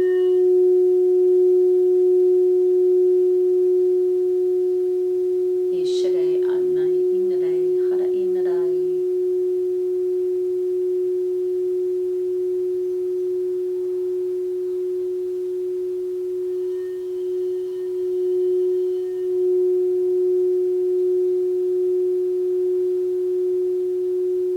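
Crystal singing bowl ringing with one pure, steady tone that is held without fading, as when the rim is continuously rubbed. A short vocal sound comes in about six seconds in.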